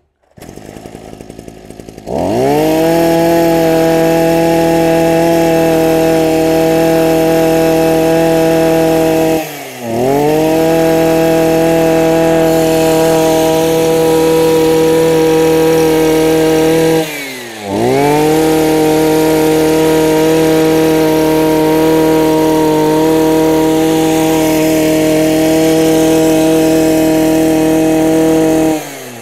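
Maruyama MB263 brush cutter's 26cc two-stroke engine idling, then revved up at about two seconds and held at a steady high-pitched full throttle. The throttle is let off briefly twice, about a third and two-thirds of the way through, and each time it climbs straight back up. It drops back to idle just before the end.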